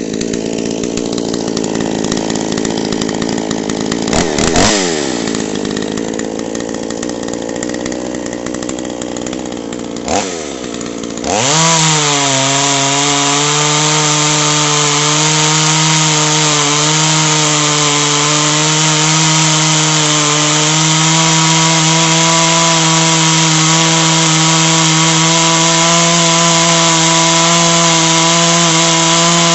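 Two-stroke chainsaw engine idling, blipped briefly about four and ten seconds in, then revved up about eleven seconds in and held at a steady high speed with no load for the rest.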